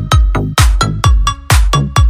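Electronic dance music with a steady, heavy kick drum about twice a second and short synth notes over it.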